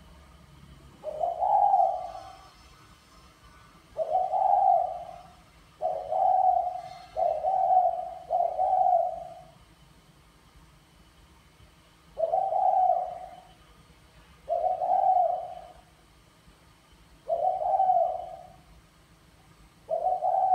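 Male spotted dove cooing in its cage: about nine short, low coos, one every one to three seconds, in the hen-rousing style that Vietnamese fanciers call "thúc mái".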